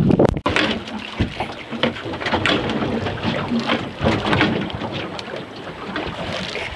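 Wind on the microphone and water sloshing against the hull of a small fishing boat, with scattered knocks.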